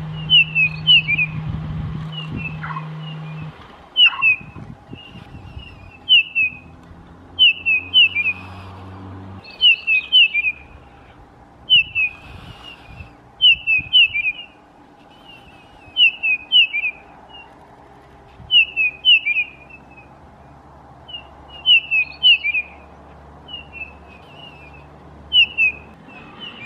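Grey-headed bullfinch giving short whistled call notes in little clusters of two to four, repeated every second or two. A low steady hum lies under the first few seconds.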